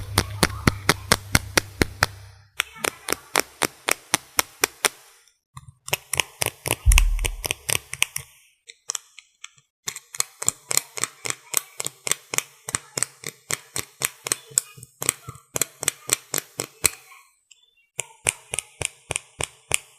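Runs of rapid, even tapping, about three or four taps a second, broken by short pauses, with a low thump about seven seconds in.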